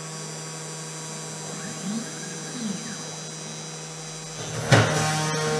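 Sainsmart Genmitsu 3018 PROver desktop CNC router starting its job: the spindle motor runs with a steady hum, and the stepper motors move the carriage with brief rising and falling whines. About five seconds in, the machine's sound gets suddenly louder.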